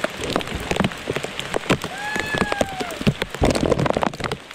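Rain falling, with large drops striking close by as many irregular sharp taps. About two seconds in, a single drawn-out call with overtones rises slightly and then falls, lasting about a second.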